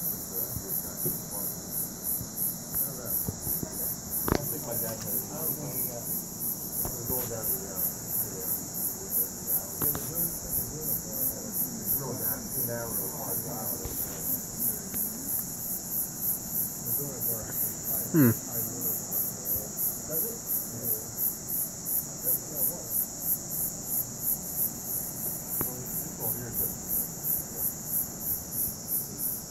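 Night insects chirping in a steady pulsing rhythm, about two pulses a second. A sharp click comes about four seconds in, and a little past the middle a short sound drops steeply in pitch.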